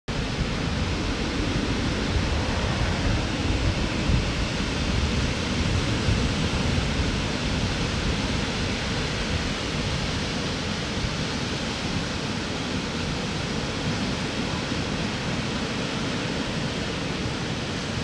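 Sea surf: small waves breaking and washing up a sandy beach, a steady rushing noise with no separate crashes.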